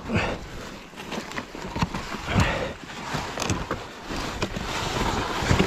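Irregular crunching, scuffling and thumps as people heave and drag a pit bike through deep snow, with no engine running.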